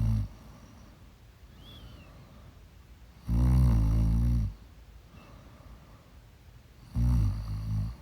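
Loud snoring in a slow rhythm: a short snore right at the start, a longer one of just over a second about three seconds in, and another near the end, with quiet breathing between.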